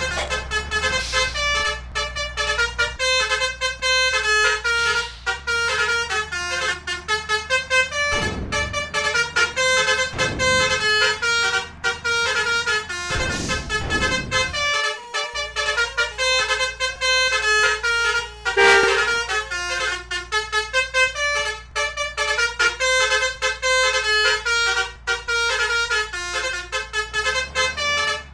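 Multi-tone Basuri 'telolet' bus trumpet horns playing rapid melodic tune patterns, note after note without pause, over a low engine rumble.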